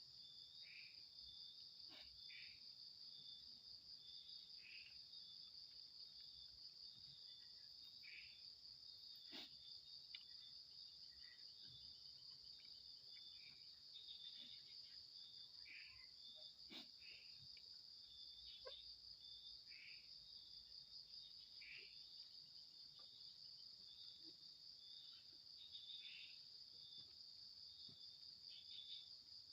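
Faint steady chorus of night insects, crickets trilling in a fast, even pulse, with shorter chirps from other insects every second or two and a few faint clicks.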